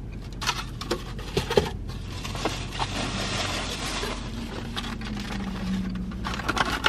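Handling of takeout food packaging: black plastic clamshell containers clicking and knocking, with rustling from rummaging in a takeout bag in the middle.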